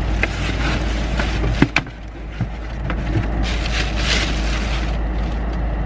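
A large cardboard box being opened and a pan in a clear plastic bag lifted out. A few sharp knocks and clicks come in the first couple of seconds, then plastic crinkles and rustles around four seconds in, over a steady low rumble.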